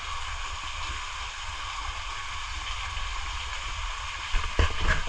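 Steady rushing hiss of running water in a cave pool, with a few low thumps near the end.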